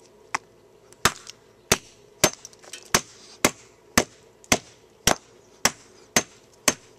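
Hammer repeatedly striking the plastic case of a motorcycle CDI box, about two sharp blows a second, smashing it open.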